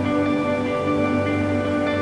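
Background music with long held notes.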